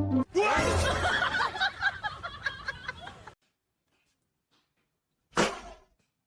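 Several people laughing together, breaking off abruptly about three seconds in; a short loud sound follows near the end.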